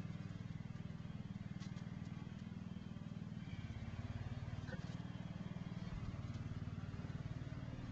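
Low, steady hum of a running motor or engine, with a fast even pulse and no breaks.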